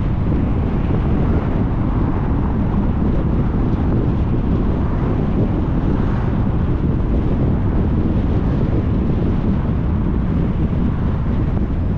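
Steady wind noise on the microphone over the low rumble of a car driving along a paved road.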